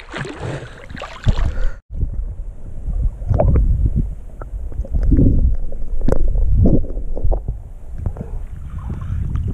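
Water sloshing around a waterproof camera as it is dipped in and out of a river. A brighter splashing wash comes first and stops suddenly. Then a muffled underwater rumble follows, with irregular knocks.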